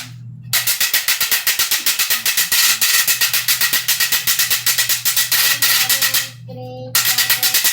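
Cane guacharaca, the ridged vallenato scraper, rasped quickly and evenly with its wire fork in a steady rhythm. It breaks off briefly near the end, then starts again.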